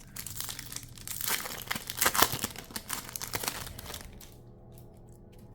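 Foil wrapper of a Pokémon TCG mini booster pack being torn open and crinkled by hand, loudest about two seconds in and dying away after about four seconds.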